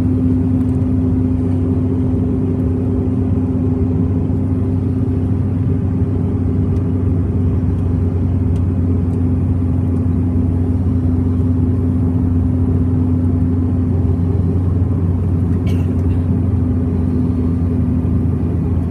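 Steady cabin noise of a CRJ-700 regional jet in its climb after takeoff: a constant low drone from its rear-mounted GE CF34 turbofans and the airflow, with a steady hum tone over it.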